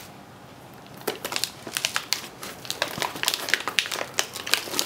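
A metallic anti-static bag crinkling as the graphics card inside it is gripped and pulled out of its foam packing. It is a dense run of crackles that starts about a second in.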